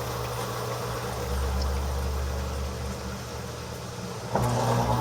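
Haier HLP23E portable washing machine's motor giving a short rev of about a second near the end, with a rising whine, over a steady low hum. These brief pulsed revs at the start of the spin help level the load in the drum.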